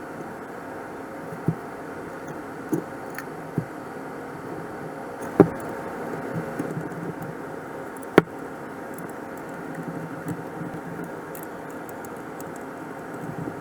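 Sharp metallic clinks and knocks of hand tools and small bolts being handled, about six in all; the loudest come about five and a half and eight seconds in. A steady hum runs underneath.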